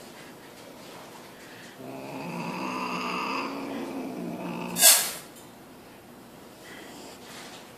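A cat growls in a long, low, rough yowl for a couple of seconds, then gives a short, sharp hiss, the loudest sound. Growl and hiss are a cat's threat warning to another cat.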